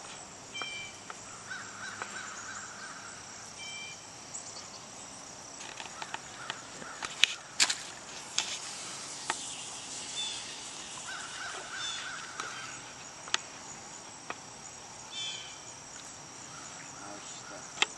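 Outdoor ambience: a steady high insect drone, with birds calling now and then in short two-note calls and a few harsher, rasping calls. Several sharp clicks cluster in the middle and recur once or twice later.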